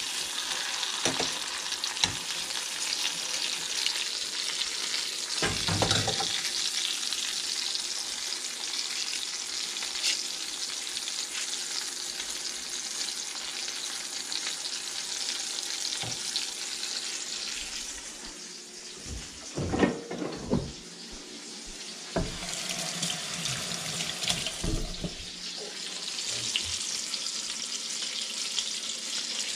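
Ribeye steak sizzling steadily as it sears in oil in a stainless steel skillet, with a few knocks of handling. The sizzle eases for a few seconds about two-thirds of the way through, then picks up again.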